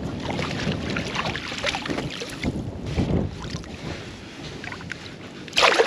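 Water splashing and sloshing as a trout moves in a landing net held in the shallows while hands work at it, with wind buffeting the microphone. It gets louder near the end.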